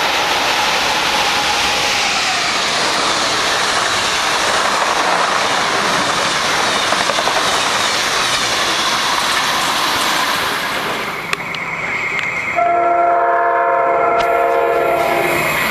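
An Amtrak passenger train passing close at speed: a loud, steady rush of wheels and air with rail clatter. After a brief dip about eleven seconds in, an approaching train sounds a multi-note horn for about two and a half seconds.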